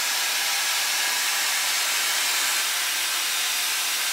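Shark FlexStyle air styler with its curling barrel attachment blowing air to curl a section of hair: a steady, even rush of air.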